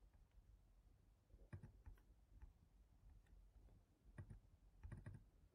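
Near silence broken by a few faint computer clicks, scattered single clicks with a quick cluster near the end, as files are opened in Finder.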